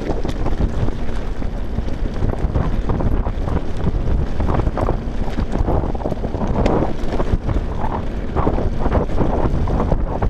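Wind buffeting the microphone of a camera on a mountain bike descending a loose gravel track, over the tyres crunching on stones and the bike rattling over the bumps, with scattered sharp clicks and knocks.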